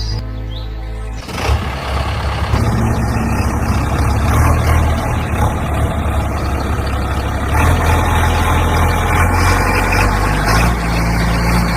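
Heavy vehicle engine running steadily, starting about a second in after a brief stretch of music.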